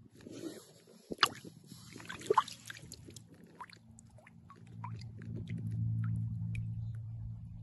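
Water trickling and dripping with sharp clicks and light knocks as a wet stream pebble is handled, two clicks louder than the rest in the first half. A low steady hum rises about halfway through.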